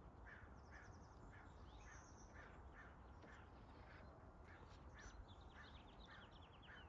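Faint acorn woodpecker calls: short, harsh notes repeated evenly about twice a second, with faint higher chattering trills.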